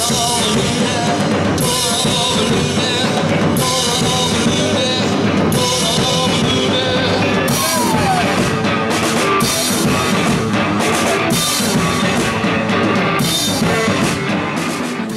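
Rock music with a drum kit playing.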